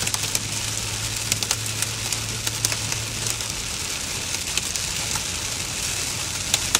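Heavy rain hitting a moving car's windshield and roof, heard from inside the car: a steady hiss with scattered sharp ticks of drops striking the glass, over the low hum of the car on the road.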